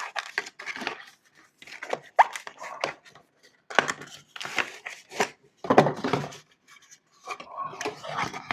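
Perfume box packaging being handled and opened: irregular bursts of cardboard and paper rustling, scraping and tearing, with a few sharp clicks.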